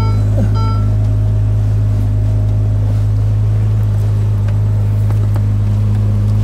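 Ferrari 296 GTS's twin-turbo V6 idling with a steady low drone, the car standing still. A short electronic beep from a parking payment machine sounds about half a second in.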